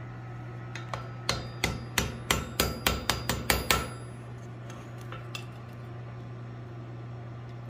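Blacksmith's hammer striking the forged steel woodpecker on the anvil, about eleven quick ringing blows over three seconds that come a little faster toward the end, then two light taps.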